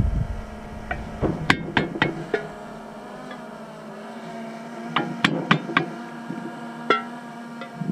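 A hammer tapping holes into the lid of a sugar-syrup container to make a bee feeder: two quick runs of sharp taps with a brief ring after each, a couple of seconds apart, then a couple of single taps near the end.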